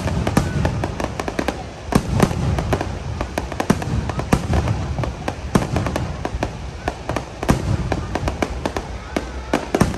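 Fireworks going off in a dense, irregular barrage: many sharp bangs and cracks, several a second, over a continuous low rumble.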